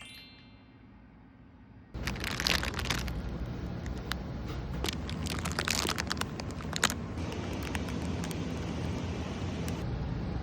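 Crunching and crackling with many sharp clicks, thickest between about two and seven seconds in, over a steady low rumble that starts suddenly about two seconds in.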